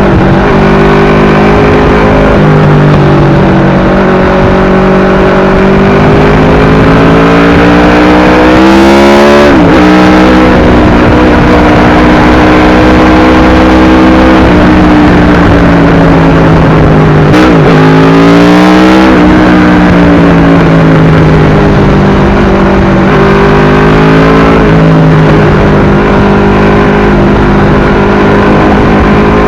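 Aprilia RSV4's V4 engine through an SC-Project exhaust, loud, running at a steady pitch under way. Twice, about 9 and 18 seconds in, the engine note drops sharply and climbs back up.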